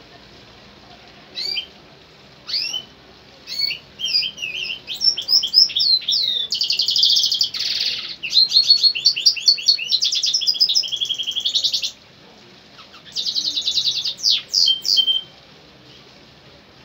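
Caged goldfinch hybrid singing: a long run of high, rapid twittering phrases and trills starting about a second in, with a short break near the two-thirds mark, ending a couple of seconds before the end.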